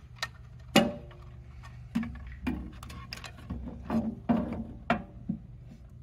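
Handling knocks and clicks as a new BlumSafe 2.0 keypad housing is set against the steel safe door and its wiring is fitted. About nine sharp knocks and clicks, irregularly spaced, several followed by a short ring; the loudest comes a little under a second in.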